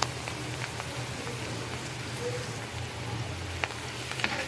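Mustard seeds, garlic and ginger sizzling in hot mustard oil and ghee in a kadhai: a steady crackling sizzle with a few sharp pops, two of them near the end.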